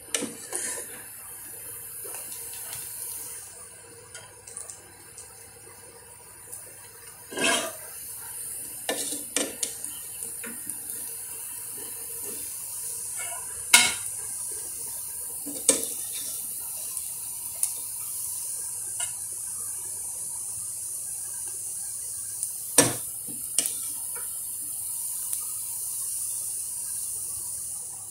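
Metal perforated skimmer clinking and scraping against a cooking pot and a glass baking dish while rice is scooped across, with scattered sharp knocks, the loudest about halfway through and again a few seconds later. A steady hiss runs underneath.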